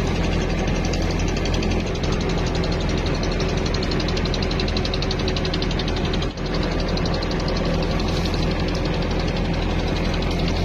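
Tour boat's engine running steadily under way, a constant low drone with a fast, even rattle over it. The sound drops out briefly about six seconds in.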